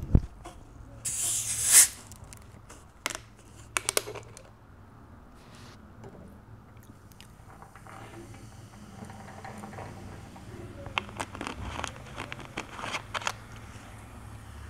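Screw cap twisted off a green plastic drink bottle, with a short hiss about a second in as it opens, followed by scattered clicks and crinkles of the bottle and cap being handled, with a quick run of clicks near the end as the cap is worked again.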